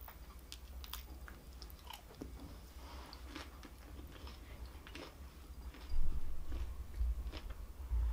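Close-miked chewing of crispy breaded fried food, with scattered crunches and wet mouth clicks. A few dull low thumps stand out from about six seconds in.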